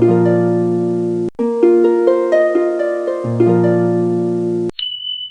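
Background music: a plucked, harp-like phrase of rising notes, played twice with a brief break between, that cuts off near the end and gives way to a single steady high tone.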